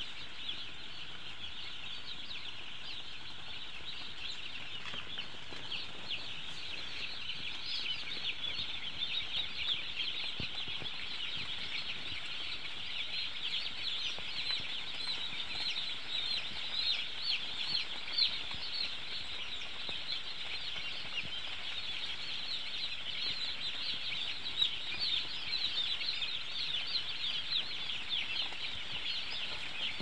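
Hundreds of broiler chicks peeping together in a dense, continuous chorus of short, high peeps, growing a little louder after the first several seconds.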